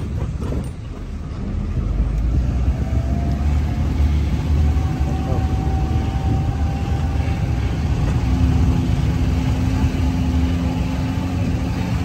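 Riding in a resort buggy: a steady low rumble of the moving cart and wind on the microphone, with a faint motor whine coming and going over it.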